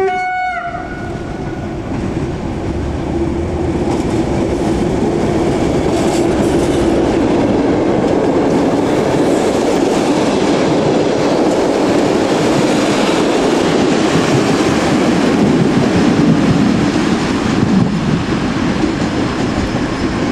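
Class SU42 diesel locomotive giving a short horn blast at the start, then passing close by with its engine running, followed by a rake of passenger coaches clattering over the rail joints. The rumble builds over the first few seconds, stays loud, and eases slightly near the end as the train moves away.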